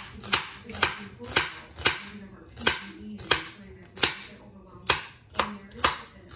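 Santoku-style knife chopping an onion on a cutting board: sharp knocks of the blade striking the board, about two a second and unevenly spaced.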